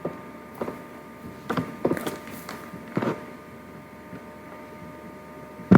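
Computer mouse clicking, about seven sharp clicks at irregular intervals, over a faint steady electrical hum.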